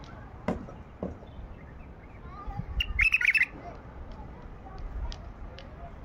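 White-eared bulbul (Baghdadi bulbul) singing one short bubbling, warbled phrase about three seconds in, with a few faint notes and two light clicks in the first second, over a low rumble.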